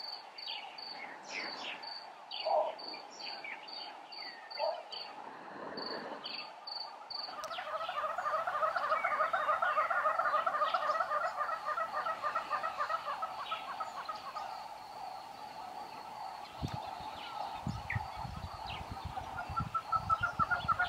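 Early-morning bush sounds: an insect chirping regularly about three times a second with scattered bird calls. From about seven seconds in comes a loud, fast chattering chorus of birds, and near the end helmeted guineafowl cackle among low rustles and thuds in dry grass.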